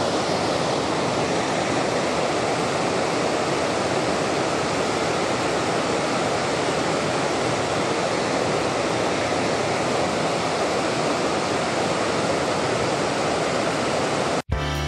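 Water pouring over a low stepped concrete weir on a mountain stream: a steady, unbroken rushing noise. It cuts off suddenly just before the end, where music begins.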